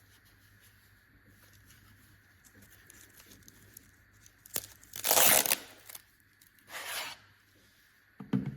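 Two short bursts of tearing, crinkling noise, the first loud and about half a second long, the second weaker a second and a half later, followed near the end by a dull thump.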